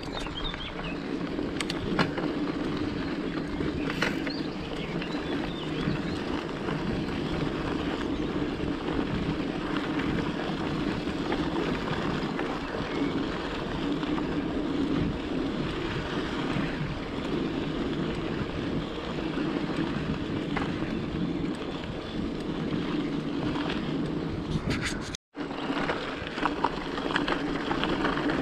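Mountain bike riding on a rough, stony dirt track: a steady rumble of tyres and rattling bike mixed with wind on the camera microphone, with a few sharp knocks from the bike over stones. The sound cuts out for a split second near the end.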